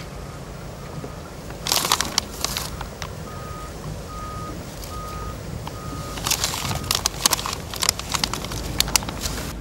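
Plastic and foil bait bags crinkling and boilies clattering as they are tipped into a bucket, in a short spell about two seconds in and again from about six seconds to near the end. A regular series of short high beeps sounds in the background.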